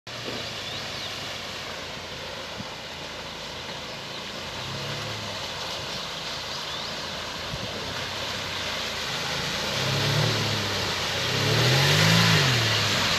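Chevrolet Niva 4x4's engine revving up and down as it drives through deep mud, over a steady hiss. It gets louder as the vehicle approaches, with the strongest rise and fall of revs near the end.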